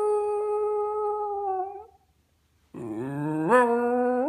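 West Highland White Terrier howling: one long note that sags slightly and breaks off about two seconds in. After a short pause a second, lower howl starts and climbs in pitch in steps.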